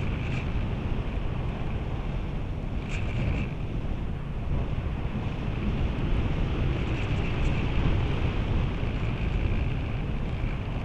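Steady rush of wind over a camera mounted on a radio-controlled model glider in flight. A faint higher whistle comes and goes, strongest about 3 seconds in and again around 7 seconds.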